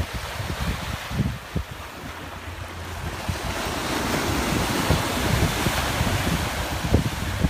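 Ocean surf washing onto a sandy beach, the hiss of the water swelling about halfway through as a wave breaks in the shallows. Wind buffets the microphone with low rumbling gusts.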